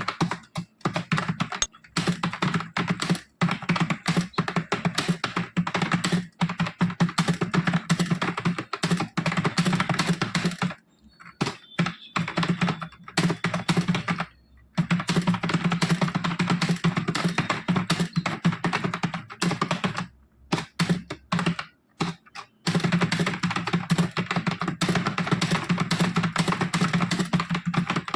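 Rapid, continuous touch typing on a computer keyboard: a fast stream of key clicks that pauses twice for a few seconds, once just before the middle and once about three quarters of the way through.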